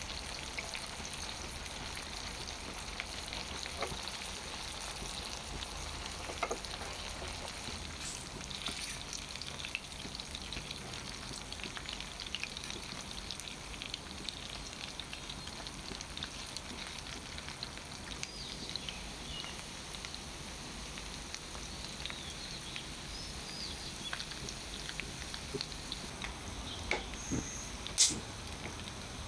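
Chicken legs pan-frying in oil: a steady sizzle with scattered small pops and crackles, and one sharper click near the end.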